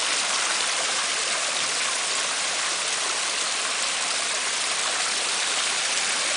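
Water pouring steadily down a homemade cement-and-rock garden waterfall and splashing into a pond.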